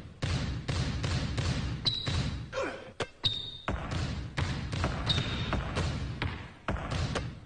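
Basketballs dribbled hard on a studio floor in a quick, rhythmic pattern of bounces, with a few short high squeaks between them.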